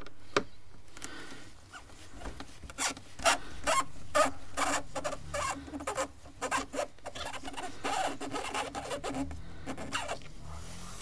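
A screwdriver undoing small T25 Torx screws by hand: a run of irregular clicks and scrapes, about two or three a second, starting a couple of seconds in and stopping shortly before the end.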